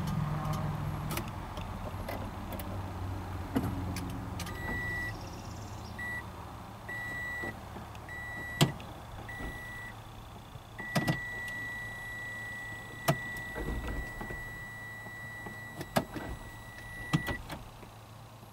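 Warning chime in the cabin of a 2017 Toyota Camry Hybrid: a high beep sounding five short times, then held as one long steady tone for several seconds. Several sharp clicks fall among the beeps, and a low hum fades out in the first few seconds.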